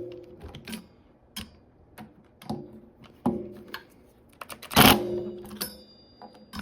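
Scattered clicks and taps of hand tools against metal bike parts, with one loud knock a little after the middle followed by a brief faint metallic ring.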